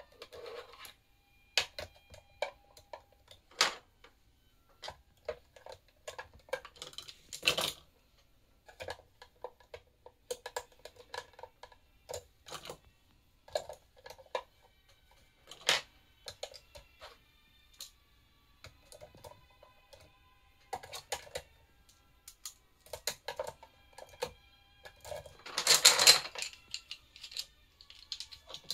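Pens, markers and pencils clicking and clattering against one another and the pen holder as they are sorted by hand: irregular light clicks and taps, with a longer, louder clatter near the end.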